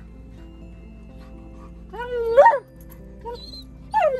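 Alaskan Malamute vocalizing in a whining, talking way: a long rising-and-falling call about two seconds in, then a shorter falling call near the end, over background music.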